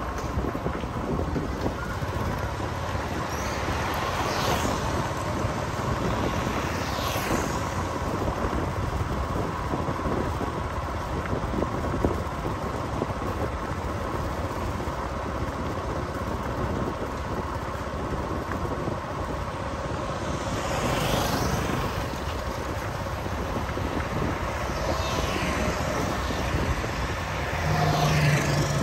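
Steady road and wind noise from a vehicle driving through town traffic, with other vehicles passing by now and then.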